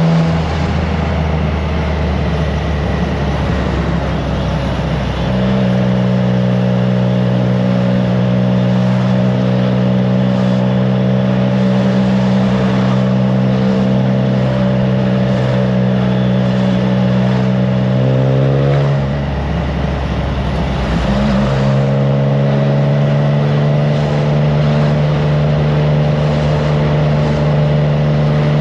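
Triumph Trident 660's three-cylinder engine through a FireTong aftermarket exhaust, running steadily under way. The engine note shifts pitch several times, with a short rise and drop about two-thirds through, over a steady rush of wind noise.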